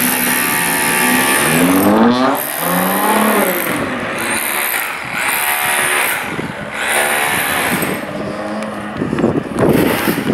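Nissan GT-R R35's twin-turbo V6 revving as the car pulls away, its pitch climbing and dropping several times. A louder, rougher rush of noise comes in near the end.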